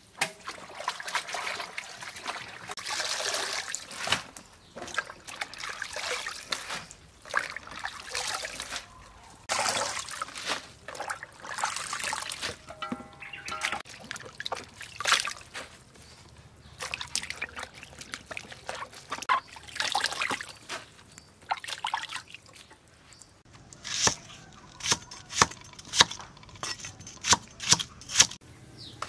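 Hands washing vegetables in a plastic basin of water: splashing, sloshing and trickling in uneven bursts. Near the end a large knife cuts on a wooden chopping block in a quick run of sharp knocks.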